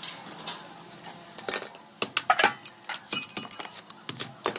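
Flat steel strips being handled and set down on a heavy steel block: a run of irregular metal clinks with short ringing, starting about a second and a half in and thickening toward the end.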